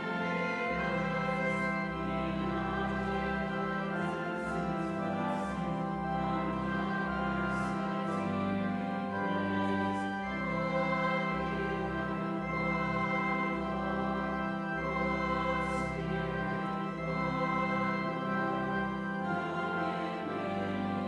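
A congregation singing a hymn to organ accompaniment: long sustained chords over a bass that steps to a new note every second or two.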